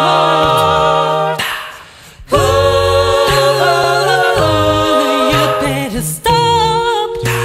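An a cappella vocal group singing in close harmony over a held bass line. The phrase ends about a second and a half in and, after a short pause, the voices come back in with a new chord.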